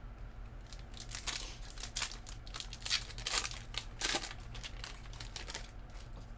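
Wrapper of a trading card pack crinkling and tearing as it is opened, in a string of short rustles that are loudest in the middle.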